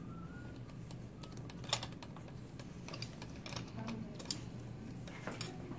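Irregular light clicks and taps from the metal parts of a ring external fixator on a leg being handled and loosened during its removal, the loudest click about two seconds in.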